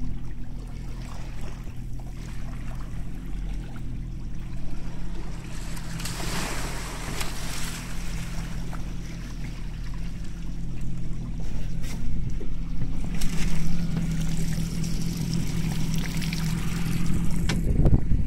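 Boat engine idling with a steady low hum, with the wash of water swelling and fading over it twice.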